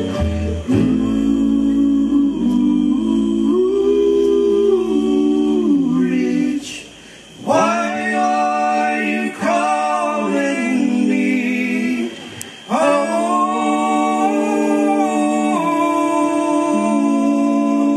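Bluegrass band's men singing close multi-part harmony with little or no instrumental backing, in long held chords. The voices break off briefly twice, about six and a half seconds in and again about twelve seconds in.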